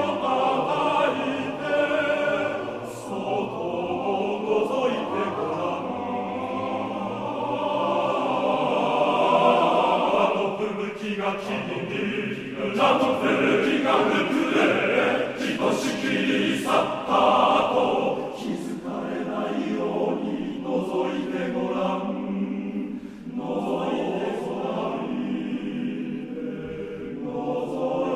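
Male-voice choir singing a cappella in a large concert hall, several parts in sustained chords.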